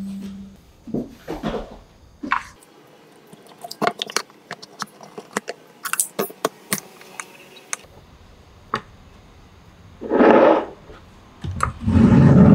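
A metal spoon clinking and scraping against the glass French press carafes, a string of short sharp ticks. Near the end come two louder squishing, gurgling rushes as the French press plungers are pushed down through the brewed coffee.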